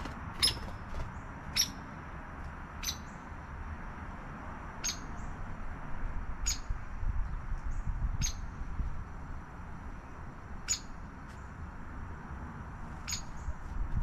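A small songbird giving sharp, high chip calls, about eight of them, spaced one to two and a half seconds apart.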